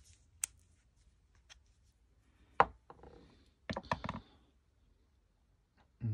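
Metal quarter-inch ratchet set down on a wooden board among other ratchets: one sharp knock about two and a half seconds in, then a short cluster of clinks and knocks about a second later.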